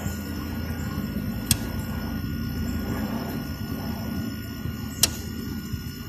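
2002 Whirlpool 5000 BTU window air conditioner running in cooling mode on its highest (turbo) fan setting: a steady hum, with two sharp ticks about three and a half seconds apart. The fan runs slow and weak even on turbo, a fault that a replaced capacitor did not cure.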